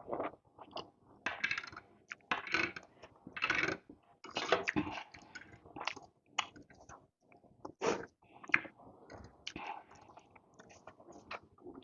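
Close-miked mukbang eating of spicy noodle soup: a run of wet slurps and chewing, with sharp clicks and clinks from the utensils and bowl. The noisy slurping bursts come mostly in the first half; the second half has more scattered clicks.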